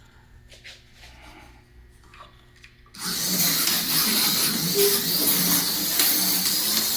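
A few faint clicks, then about three seconds in a slot car starts running on the track: the steady, loud mechanical noise of its small electric motor and wheels, with light ticking through it.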